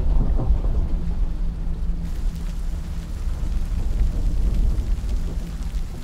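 Heavy rain with thunder rumbling low under it; the rain's hiss fills out about two seconds in.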